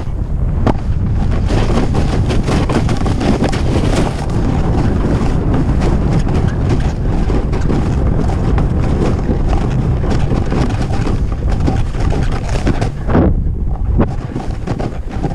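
Wind buffeting the microphone during a fast run down a snow slope, a heavy rumble, mixed with the hiss and scrape of edges carving through snow.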